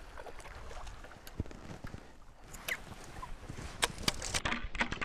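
Scattered small knocks and clicks in a fishing boat, over a low steady rumble.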